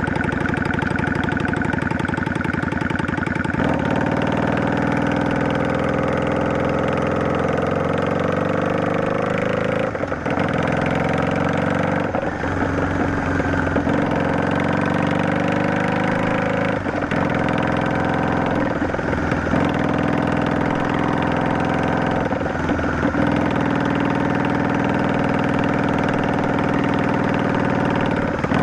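Yamaha DragStar 400's air-cooled V-twin running through an aftermarket Garage T&F Vent Muffler Type 2 with luxury inner silencer while riding. The note climbs slowly in stretches and drops briefly several times.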